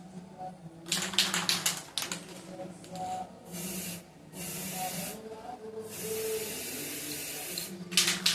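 Paint being sprayed in short hissing bursts of a second or two each, as a first coat of white goes onto a refrigerator. A quick rattling run of clicks comes about a second in and again near the end.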